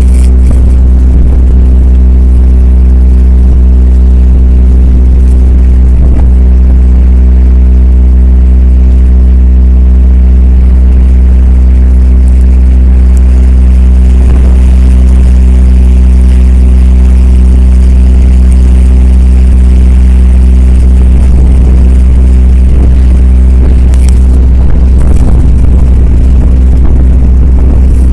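A boat's engine running steadily under way, heard on board as a loud, even drone that does not change pitch.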